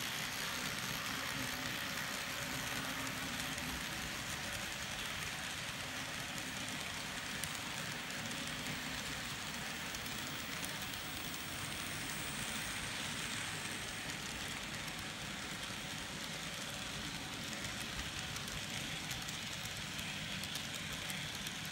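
Two N scale model trains running on the layout, a Kato SD40-2 diesel pulling freight cars and a passenger train on the next track: a steady, light rattle of small wheels on rail and running motors, with faint clicks.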